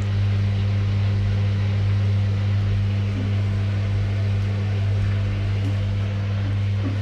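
Haier HWS50-10F2S front-loading washing machine running with its drum turning, giving a steady low electric hum.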